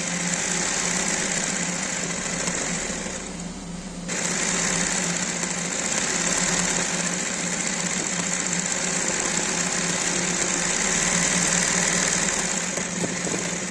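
Industrial embroidery sewing machine running fast, its needle stitching steadily with a constant motor hum under a dense rattle. The stitching eases off about three seconds in and picks up again a second later.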